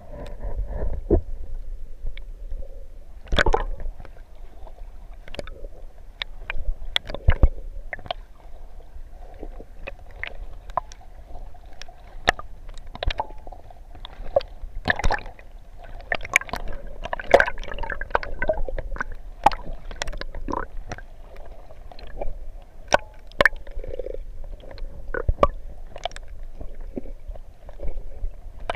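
Water heard through a submerged camera in shallow water: low gurgling and sloshing, cut by irregular sharp clicks and knocks, roughly one to three a second.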